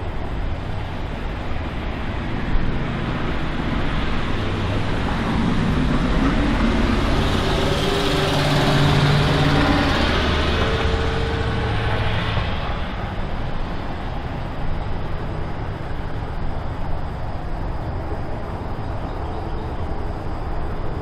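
A motor vehicle passing on the road, growing louder to a peak about eight to nine seconds in and then fading, over steady traffic noise.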